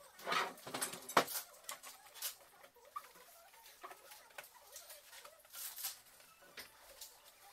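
Small clicks, rattles and scrapes of plastic and metal parts being handled inside a Eumig R2000 film projector as new drive belts are fitted with belt springs and hooks. A louder cluster of scraping and clicking comes in the first second or so, then only scattered light clicks.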